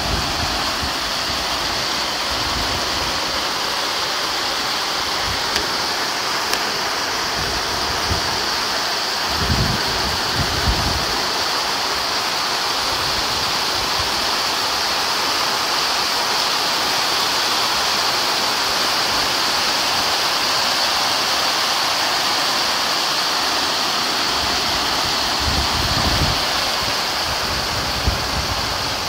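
Heavy rain pouring steadily onto a paved courtyard and grass, a dense, even hiss. Twice there is a brief low rumble of wind on the microphone.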